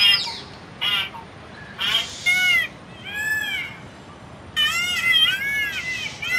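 Indian peafowl calling: a loud, falling call at the start, a few separate arched honks, then a quick run of repeated arched calls from about four and a half seconds in.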